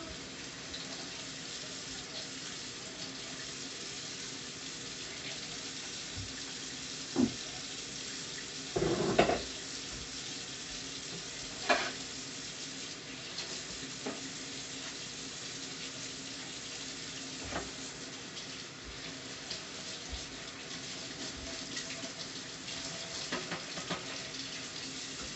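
Covered pan of taro stolons and shrimp simmering on the stove with a steady hiss, broken by three brief knocks a few seconds apart in the first half.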